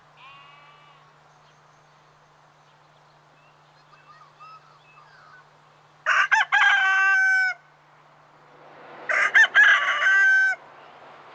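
A rooster crowing twice, each crow about a second and a half long and about three seconds apart, over faint calls of other birds. In the second half the rumble of an approaching train builds underneath.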